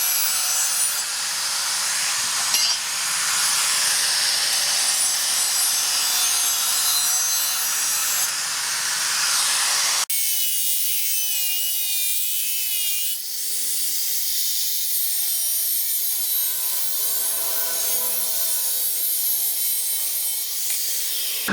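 Steel being rasped or abraded by a tool: a steady scraping, sawing noise. The sound changes abruptly about ten seconds in, turning thinner.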